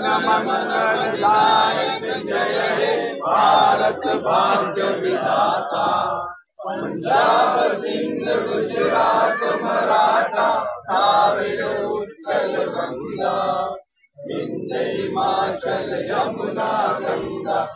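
A group of men singing together in long phrases, with two short breaks between them.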